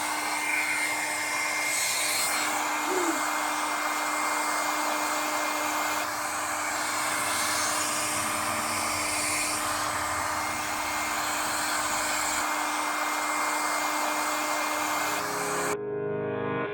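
Philips 1000-watt hair dryer running, a steady rush of blown air over a motor hum and a thin high whine. It cuts off about a second before the end, when music starts.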